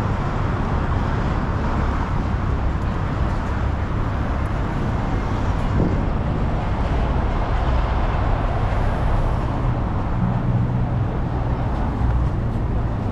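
City street traffic noise: a steady rumble of motor vehicles with a low engine hum that grows steadier near the end.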